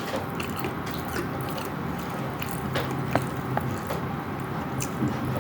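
Eating sounds of a mukbang meal: chewing with scattered small wet clicks and smacks, over a low steady hum.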